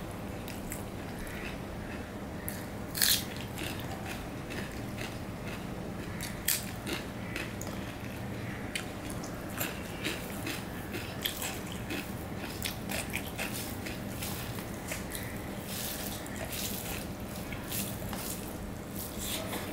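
A hand mixing rice and curry on a stainless steel plate, with many short, sharp clicks and taps of fingers against the metal scattered irregularly, the loudest about three seconds in, along with the sounds of eating by mouth.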